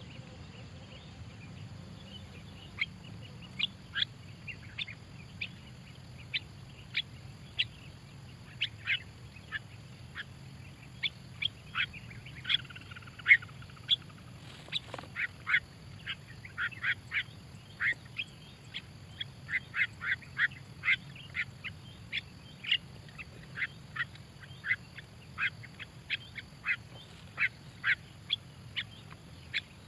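Starlings calling: short, sharp calls repeated irregularly, about one or two a second, over a low steady background hum.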